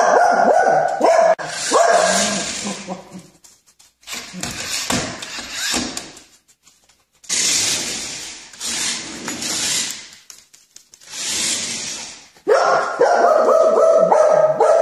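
Small dog barking in repeated short bursts, with a run of high, pitched barks near the end.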